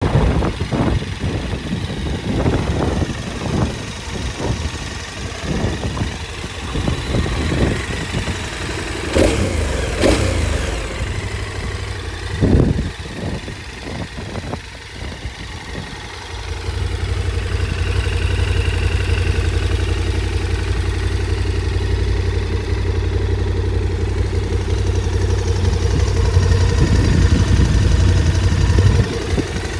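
KTM 1290 Super Adventure S's V-twin engine. For about the first half the sound is uneven rumbling with knocks, then from about halfway it settles into a steady idle.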